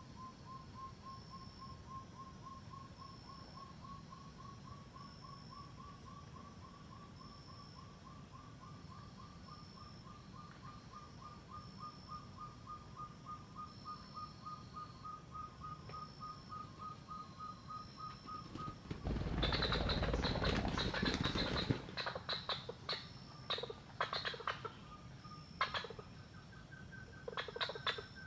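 Puyuh gonggong (hill-partridge) call: a long series of short whistled notes that creep up in pitch and speed up for about eighteen seconds. A loud noisy burst of about three seconds follows, then scattered clicks, and a new, higher series of notes begins near the end.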